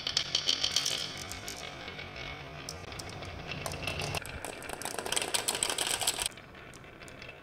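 Marbles rolling and clattering down a homemade marble run, a dense rattle of quick clicks as they strike the track and each other. The rattle thins out and quietens about six seconds in.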